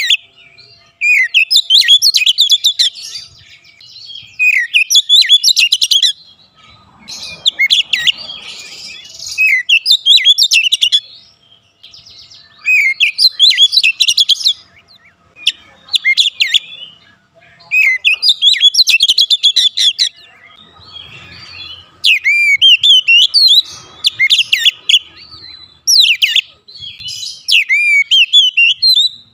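Oriental magpie-robin (kacer) singing loudly in a string of phrases of fast, varied whistles, each one to three seconds long with short breaks between.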